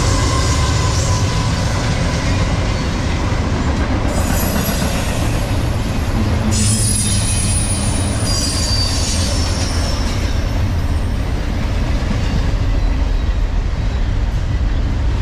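Norfolk Southern double-stack intermodal freight train passing close by: locomotives and then container cars rolling with a steady, loud rumble of wheels on rail. High-pitched wheel squeal comes and goes through the middle part.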